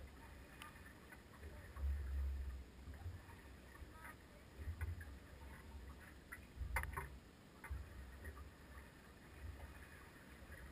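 Low, irregular rumbles and scattered light knocks and clicks aboard a drifting fishing boat, with no engine running; a sharper knock comes about seven seconds in.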